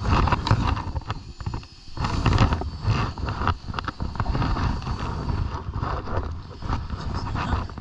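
Wind rumbling on the microphone, with scattered knocks and footsteps on wooden deck boards.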